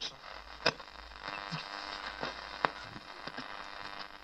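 Early-1970s Roberts R600 transistor radio playing at low level through its loudspeaker: faint broadcast sound with crackle over a low hum, and two sharp clicks, one under a second in and one past halfway.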